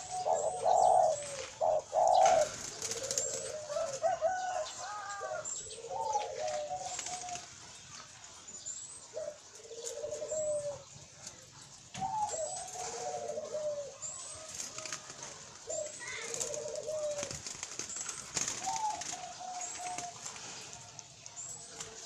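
Caged doves, white ringneck (Barbary) doves among them, cooing over and over in low rolling phrases, loudest in the first few seconds. Short high chirps from other birds come in throughout.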